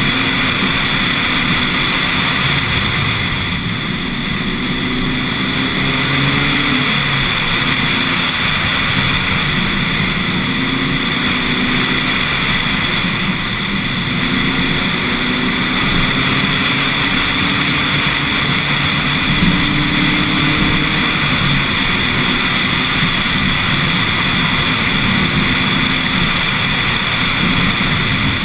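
Lotus Elise S1 111S's 1.8-litre Rover K-series VVC four-cylinder engine accelerating up a mountain climb, its note rising in pitch and dropping back at each of a few upshifts. It is heard from the front of the car under heavy wind and road noise.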